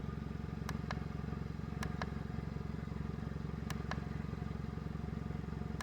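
A vehicle engine idling steadily, with several short clicks as buttons are pressed on the portable air compressor's control panel.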